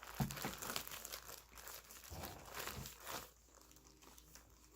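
Plastic bag crinkling and rustling as a slime mixture is squeezed and kneaded inside it by hand. The rustling comes in irregular handfuls for about three seconds, then dies down.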